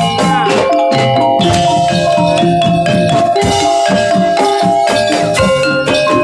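Jaranan gamelan music playing without a break: tuned metal percussion rings out interlocking notes over drum strokes at a steady beat.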